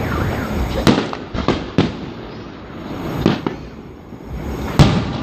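Fireworks bursting overhead in a display: a quick run of sharp bangs about a second in, two more a little past three seconds, and the loudest bang near the end, with a low rumble between them.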